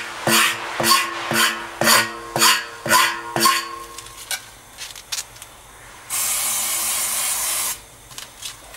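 Hand scraper drawn under hard pressure across the rubber inner liner of a truck tyre, about two strokes a second, cleaning the bonding area for a tyre-pressure sensor; the strokes stop about three and a half seconds in. Background music with plucked notes plays throughout, and about six seconds in a steady hiss lasts about a second and a half.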